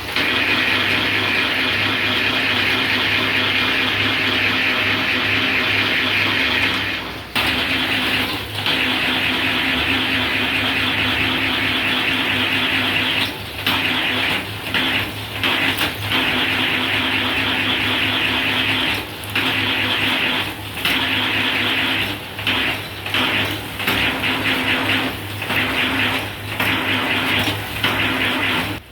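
Satay-skewer rounding machine running steadily: a motor hum under a loud, dense whir as bamboo strips are shaved through its blades. From about seven seconds in, the whir briefly drops away many times.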